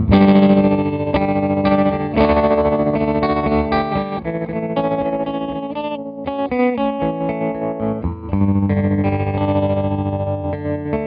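Electric guitar played through a CopperSound Loma Prieta harmonic tremolo pedal: chords struck about every two seconds and left to ring, their volume pulsing quickly and evenly.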